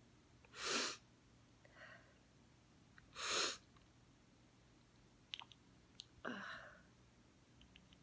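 A woman's allergy sneezes: two sharp, noisy bursts about a second in and a little after three seconds, a softer one between them, and a third just past six seconds, preceded by a few small clicks.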